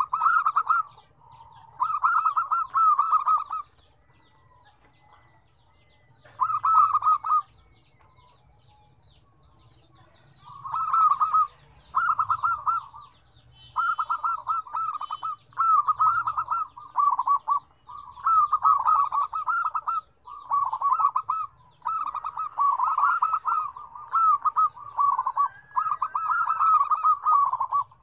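Several zebra doves (perkutut) cooing in rapid, stuttering phrases of about a second each. A few phrases come at the start, then a lull of several seconds, then the calls follow one after another and sometimes overlap.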